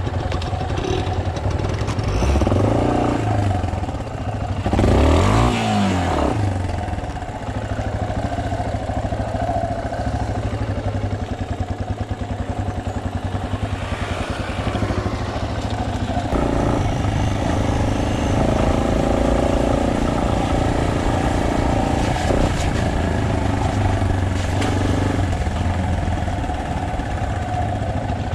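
Single-cylinder trail motorcycle running along a forest road, its revs rising and falling twice in the first six seconds, then running more steadily.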